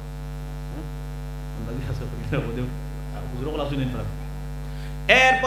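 Steady electrical mains hum on the microphone's sound system, a low buzz with many evenly spaced overtones. Faint voices show in the middle, and a man's voice comes in loudly near the end.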